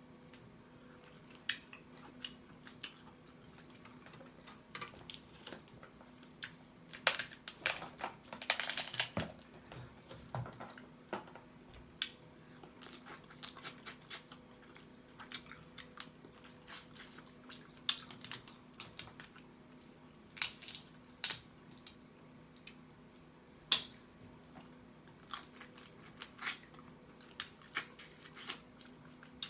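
Close-up eating of seafood boil: wet chewing and lip smacking in sharp, scattered clicks, with a denser spell of crackling and smacking about seven to nine seconds in. A faint steady hum lies underneath.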